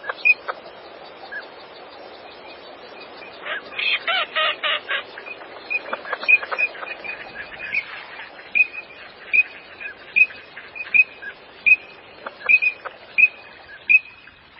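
Green-winged teal calling with short, high whistled notes. A quick run of louder calls comes about four seconds in, and from about eight seconds the whistles repeat evenly, a little more than once a second, over a steady background hiss.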